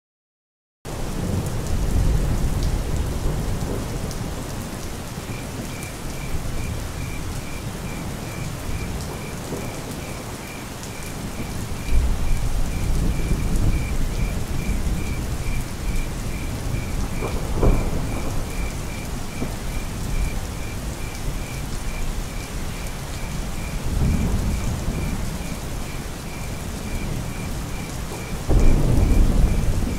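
Steady heavy rainfall with low rolls of thunder swelling up several times, starting suddenly just under a second in. A faint high chirp repeats about three times a second under the rain.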